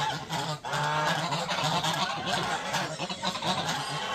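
A flock of domestic waterfowl calling noisily, with many calls overlapping and running on without a break.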